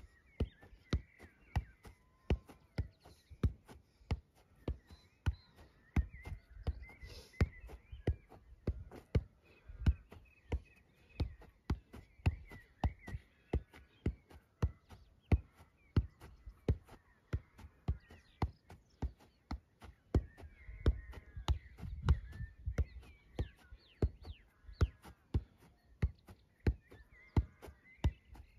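A football being juggled: a steady run of thuds as a foot and knee strike the ball, about two a second, never breaking.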